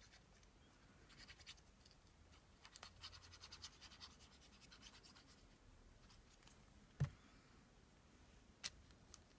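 Faint scratching and rubbing of paper being handled on a work table, densest a few seconds in. A soft knock about seven seconds in and a light click shortly before the end.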